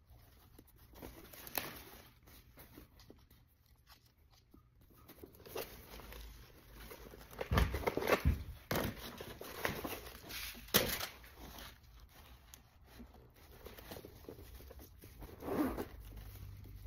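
Tissue paper rustling and crinkling as a small coated-canvas camera bag is handled in and around a cardboard box. A run of louder rustles and knocks comes about halfway through.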